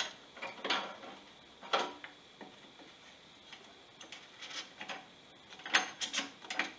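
Carbon fiber ferrule being pushed and twisted onto the tip of a wooden paddle shaft in a test fit: a scattering of light scrapes and clicks, the sharpest two near the end.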